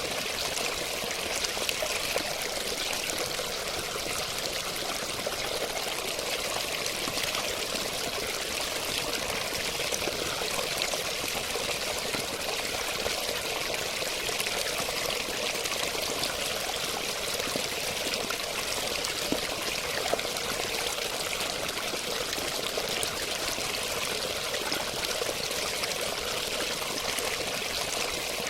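Water flowing and splashing steadily, a constant even rush with small splashes, like a stream or falling water.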